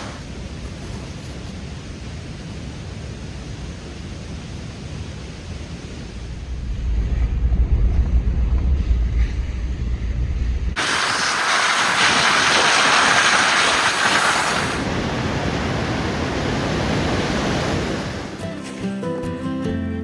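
Rushing water of a waterfall in full spring snowmelt flow: a deep, low rumble at first that grows louder after about six seconds, then an abrupt change to a brighter hissing roar of falling water. Acoustic guitar music comes in near the end.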